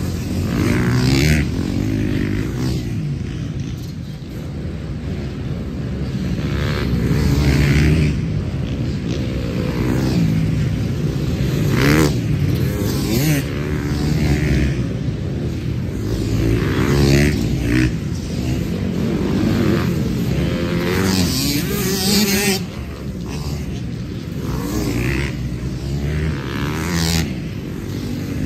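Dirt bikes riding past one after another, each engine revving up and falling away as it passes close by, with more bikes running behind.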